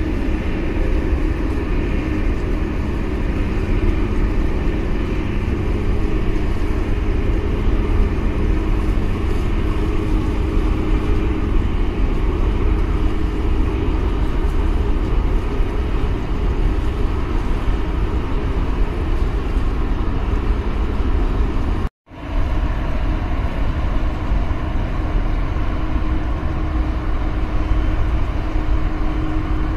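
Steady, loud low engine rumble with a constant hum from a vessel close by, mixed with wind and water noise. The sound cuts out for an instant about two-thirds of the way through, then resumes as before.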